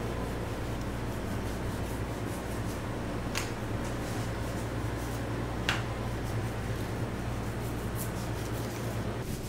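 Long butcher's knife sliding through fat as it is trimmed off a wagyu beef knuckle: soft rubbing and scraping, with two short sharp ticks, one about a third of the way in and one just past halfway, over a steady low mechanical hum.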